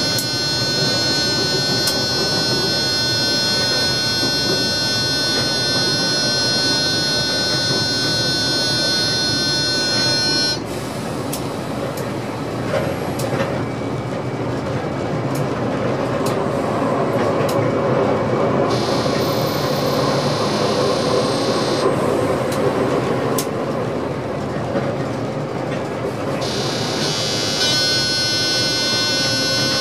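Train heard from the driving cab: a steady multi-tone electric whine from the traction drive over the rumble of wheels on rail. The whine cuts off suddenly about a third of the way in, leaving the wheel rumble with a few clicks of rail joints, and comes back near the end as power is taken up again.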